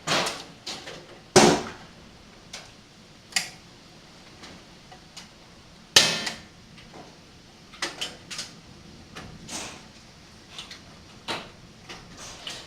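Large hailstones, as big as golf balls, striking a window and hard surfaces in irregular sharp knocks and cracks. The loudest hits come about a second and a half in and again about six seconds in, and smaller hits come more often towards the end.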